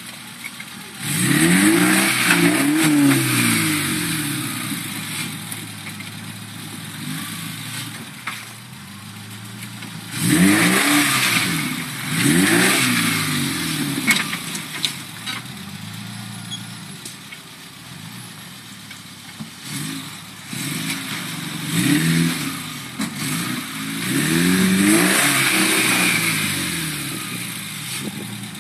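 Suzuki SJ413's 1.3-litre four-cylinder petrol engine revving in about six bursts, each rising and falling in pitch, with lower running between them, as the 4x4 works up and over rocks on a steep climb.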